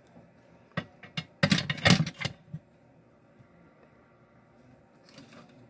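Small tools and wire being handled on a repair bench: a couple of sharp clicks, then a brief loud scraping rustle about a second and a half in, and a faint rustle near the end.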